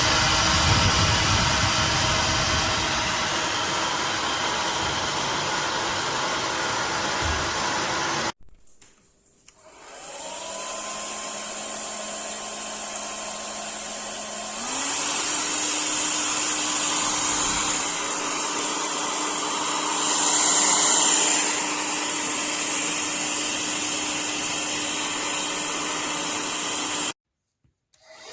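Remington ONE Dry & Style hair dryer running with a steady blowing hiss and motor whine, rising in pitch as it starts up. It cuts off about eight seconds in, then starts again at a lower speed and steps up to a higher speed about halfway through, before cutting off near the end.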